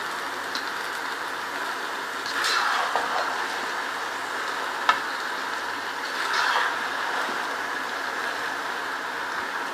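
Rice cooking in jaggery syrup in a pot on a high flame, sizzling and bubbling steadily, with a spoon stirring through it twice and one light tap of the spoon on the pot about five seconds in.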